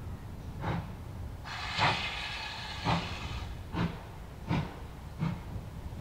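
GWR Manor class two-cylinder 4-6-0 steam locomotive working a goods train, its exhaust beats coming about once a second and getting slightly quicker. A burst of steam hiss runs for about a second and a half near the start, under the loudest beat.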